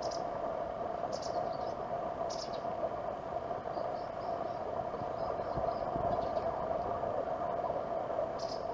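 Steady ambient hum with a few brief high-pitched chirps now and then.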